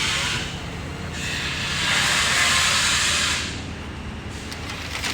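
Two long hisses of air, the second lasting about a second and a half, over a low steady hum.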